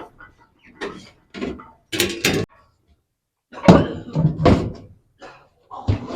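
Irregular knocks and clunks of a spin-dryer's drum and housing being worked loose from the motor shaft, loudest about four seconds in.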